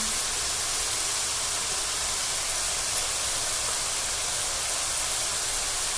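Boiled bottle gourd leaves and stems frying in mustard oil in a pan, sizzling with a steady, even hiss.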